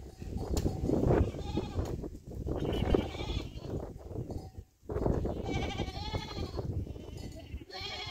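Goats bleating several times in wavering calls, amid scuffs and knocks on stony ground as they are herded.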